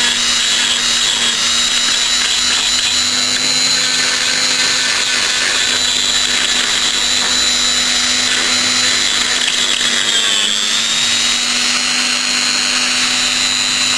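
Small electric rotary tool (бормашинка) running steadily with a high whine, cleaning the damaged spot on a truck radiator down to bare metal before soldering. Its pitch dips briefly about ten and a half seconds in, as it is pressed harder against the metal.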